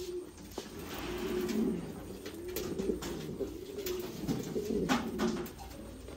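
Pouter pigeons cooing, crops puffed up: a low coo repeated in several phrases, one after another.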